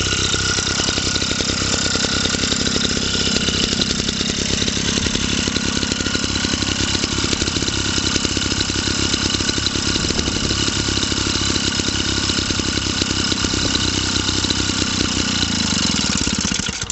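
Small JAP Model 80 stationary engine running steadily with a fast, even firing beat. Near the end it cuts out and slows to a stop.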